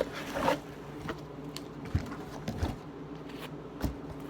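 A gift box and its wrapping being opened by hand: scattered clicks and rustles, with a steady low hum underneath.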